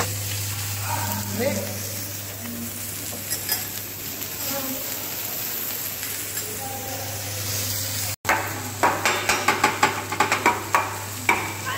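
Shredded cabbage and vegetables sizzling on a steel teppanyaki flat-top griddle: a steady hiss over a constant low hum. About eight seconds in, after a brief cut, a fast run of sharp metallic clicks and rattles starts as the chef works over the griddle with a metal seasoning shaker.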